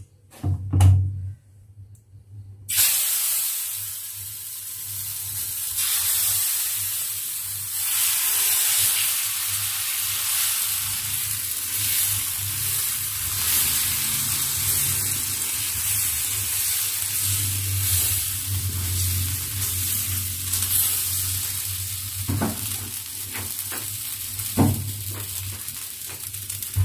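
Rice-flour and bottle-gourd batter for lau chakli sizzling on a hot, oiled tawa as it is poured and spread with a ladle. The sizzle starts suddenly about three seconds in, after a few knocks of utensils, and carries on steadily.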